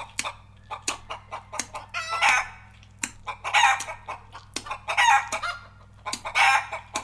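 Tongue clucking made with the back of the tongue: sharp mouth clicks, with a louder throaty cluck about every second and a half.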